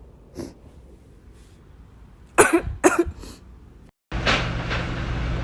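A person coughing: one faint cough, then three harsh coughs in quick succession about two and a half seconds in. The sound cuts out abruptly near the end, and a steady low hum takes over.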